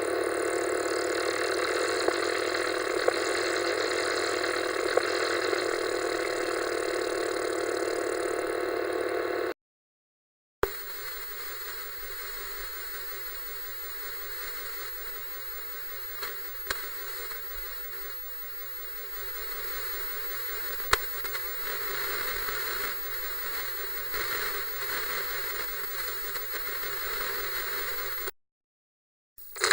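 Analog TV static: a loud, steady hiss with a buzzing hum for about ten seconds that cuts off, then after a second of silence a quieter, duller static with a few clicks for about eighteen seconds. It cuts off again, and another burst of static starts at the very end.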